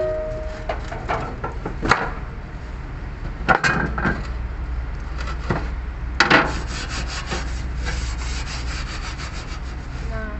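A brush scrubbing a barbecue grill: rasping scrape strokes, first a few separate ones, then a quick even run of strokes about six seconds in, over a steady low hum.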